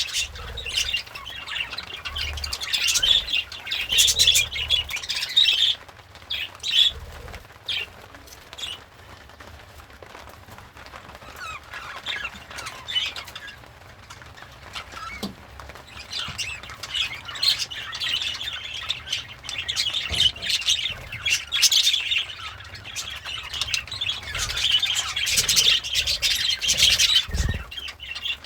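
Budgerigar chattering and warbling in quick, high chirps with the odd squawk. A busy spell at the start is followed by a quieter stretch, then steady chatter again from about halfway through.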